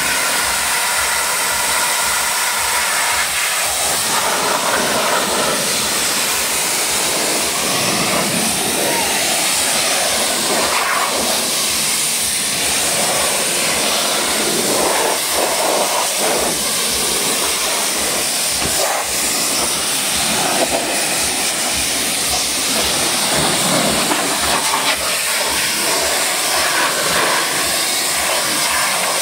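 High-pressure washer jet spraying water onto a car's wheel, tyre and door sill: a loud, steady hiss that shifts in tone as the jet moves over different surfaces.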